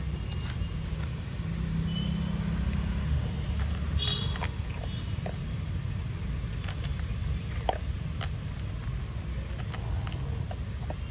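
A dog eating dry kibble from a plastic bowl, scattered small crunches and clicks over a steady low rumble, with one sharper click about four seconds in.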